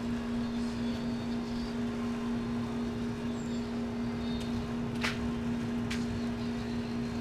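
A steady, unchanging hum over a low rumble, with two sharp pops from the wood fire burning in the steel drum about five and six seconds in.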